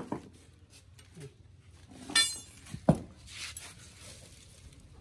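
Steel parts of a dismantled differential clinking on a concrete floor: a light click, a short ringing clink about two seconds in, then a sharp metal knock just before the three-second mark.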